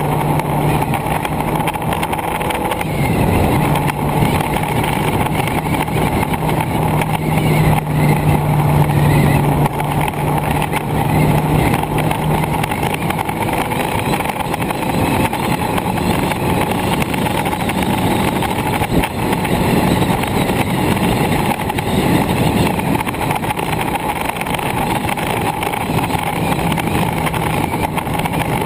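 Motorcycle engine running at a steady cruising speed, its note dipping briefly about three seconds in, with wind rushing over the microphone.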